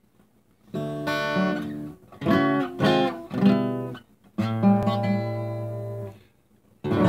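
Acoustic guitar strummed in a handful of separate chords with short gaps between them, one chord left ringing for nearly two seconds.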